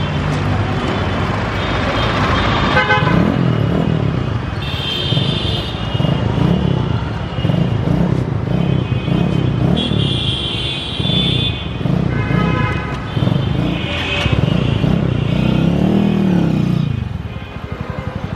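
Suzuki GSX-R sport motorcycle engine revving up and down again and again as the bike moves off, with a longer rev swell near the end. Vehicle horns honk briefly several times.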